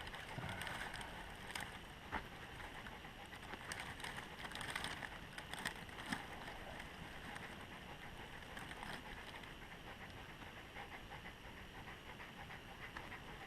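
Scrapes of a knife spine struck along a ferrocerium fire steel, a few scattered strokes, as damp cedar-bark tinder is lit, followed by light crackling.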